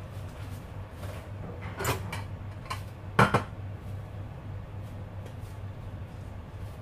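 Kitchen knocks and clatter, like dishes or a cupboard being handled: a clunk about two seconds in and a louder double knock a little after three seconds, over a steady low hum.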